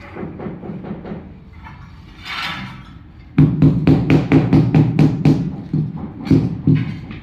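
Rubber mallet tapping a large floor tile down into its wet mortar bed to seat and level it. Softer knocks come first, then from about three seconds in a quick loud run of dull thuds, about four or five a second.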